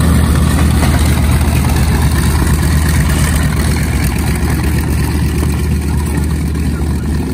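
The two Wright R-2600 radial engines of a North American B-25 Mitchell bomber running at low taxi power as it rolls past. The sound is a steady deep throb that gets a little quieter near the end.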